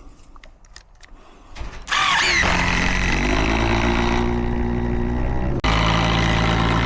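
A power tool starts about two seconds in with a rising whine and then runs loud and steady. It cuts out for a split second near the end and starts again at once.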